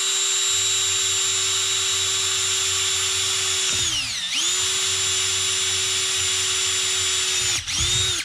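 Cordless drill running at speed as its twist bit bores a pilot hole through 3/4-inch PVC pipe: a steady motor whine that slows briefly about halfway through, dips again near the end, then stops.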